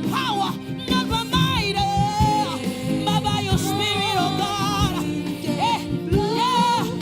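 Gospel worship music: a high lead voice sings held, wavering notes and runs over a band's sustained chords and bass.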